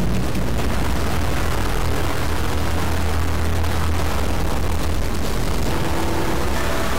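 Loud, steady roaring rumble with a heavy deep low end, like a blaze or a big engine. A few steady tones join in near the end.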